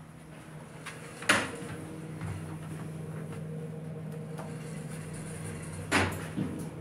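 Elevator car with a steady low hum, a sharp knock about a second in, and a thud near the end as the doors close after the floor button is pressed.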